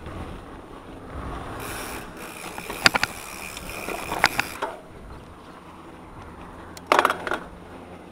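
Mountain bike ridden on a dirt trail, its rear hub ratchet buzzing while the rider coasts for a few seconds. Sharp clacks and rattles sound as the bike goes over bumps, a few around the middle and the loudest cluster near the end.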